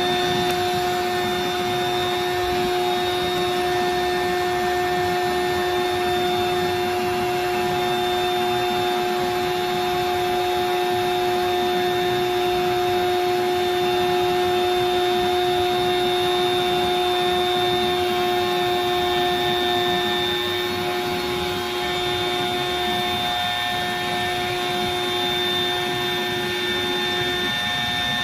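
Bestway air mattress's built-in electric air pump running, blowing air into the queen-size mattress to inflate it: a steady whirring with a constant hum, its pitch shifting slightly about twenty seconds in.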